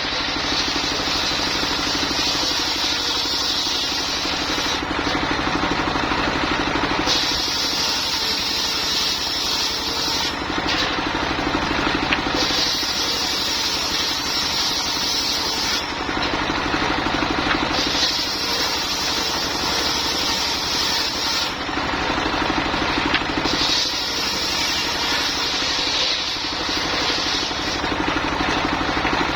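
Engine-driven mobile circular sawmill running steadily while its blade saws lamtoro (leucaena) wood, with a higher hiss during each cut that comes and goes in five passes of a few seconds each.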